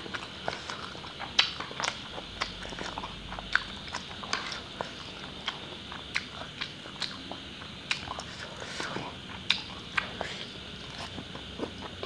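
A person chewing and slurping instant noodles close to a clip-on microphone: irregular wet mouth smacks and clicks, several a second.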